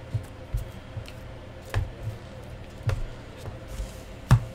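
Trading cards, their wrappers and a hard plastic card holder handled and set down on a desk: about five light knocks and clicks, the loudest near the end.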